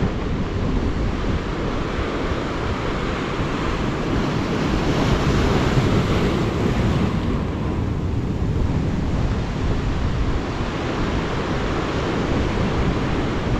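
Sea surf washing against a rocky shore, with wind buffeting the microphone; the wash swells louder about five to seven seconds in as a wave surges in.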